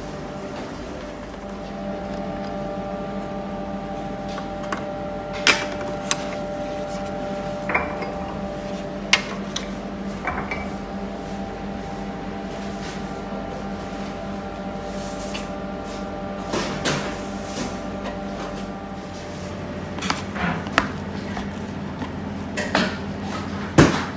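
Steady hum of bakery machinery in a small workroom, with scattered sharp clinks and knocks of metal baking trays and racks being handled, the loudest near the end.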